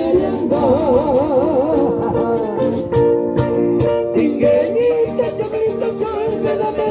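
Live band playing an Arequipa pampeña between sung verses: guitar and other plucked strings strumming a steady rhythm under a melody line with wide vibrato.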